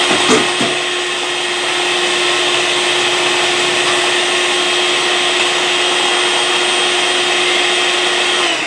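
Electric hand mixer running at a steady whine, its beater whipping instant coffee, sugar and hot water in a plastic cup toward a thick foam. A couple of light knocks just after the start, and the motor starts to wind down in pitch right at the end.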